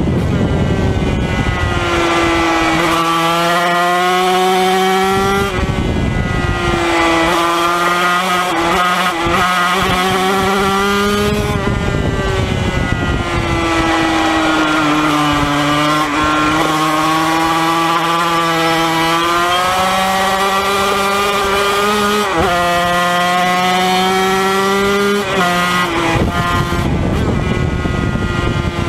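Yamaha TZ250 two-stroke racing engine at full race pace, heard from onboard. The engine note climbs in pitch through the gears, breaks off briefly at each shift, and drops back when the throttle is rolled off for corners, several times over.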